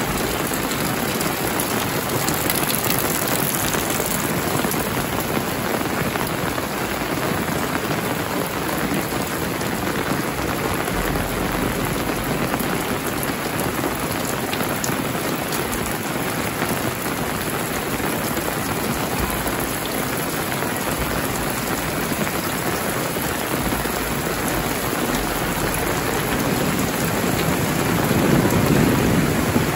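Steady heavy rain falling on corrugated metal roofs and wet ground, growing louder near the end.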